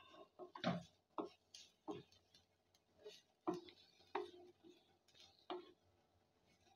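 Wooden spatula stirring and scraping a thick tomato-onion masala around a black kadai: faint, irregular taps and scrapes against the pan.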